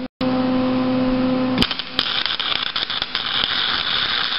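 A steady electrical hum, then a click about one and a half seconds in. From about two seconds in, a welding arc crackles and hisses steadily as the spider gear is welded to the lawn-mower differential's shaft.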